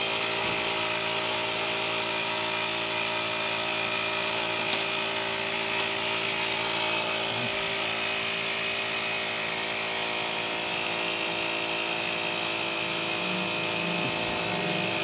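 Steady buzzing hum of a small electric motor, unchanging in pitch and level.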